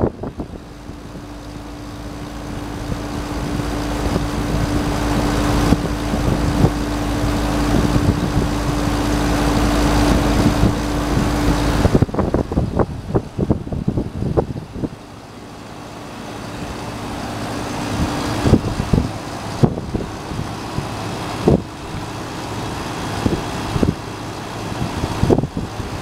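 Older outdoor air-conditioner condensing units running: the fan blowing air through the top grille over a steady motor and compressor hum. The hum is clearest until about halfway through. Scattered light knocks and ticks sound throughout.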